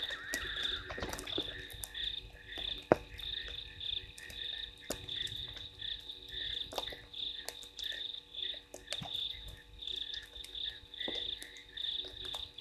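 Chorus of frogs calling in rapid, repeated pulses, with scattered sharp ticks and one louder click about three seconds in.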